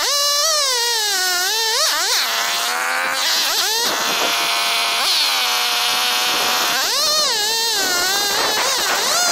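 McCulloch Pro Mac 1010 54 cc two-stroke chainsaw ripping lengthwise through a big log, played fast-forwarded so its engine note is a high-pitched whine. The pitch rises and falls over and over as the saw loads and revs, and holds steadier for a few seconds in the middle.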